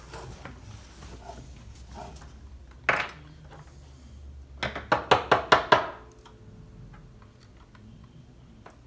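Sharp metallic clicks and taps from gapping a spark plug with wire feeler gauges: a single click, then a quick run of about seven sharper clinks about five seconds in.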